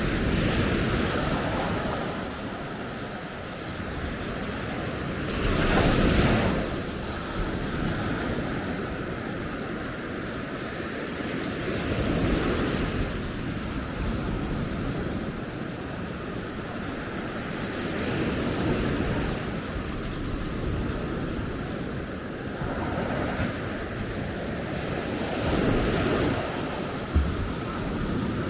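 Sea waves breaking and washing up the beach, the surf swelling and fading about every six seconds, with wind on the microphone. A short knock near the end.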